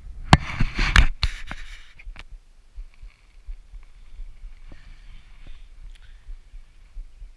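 Fishing gear being handled in a plastic kayak: a quick flurry of sharp knocks and clicks in the first two seconds, then only faint scattered taps.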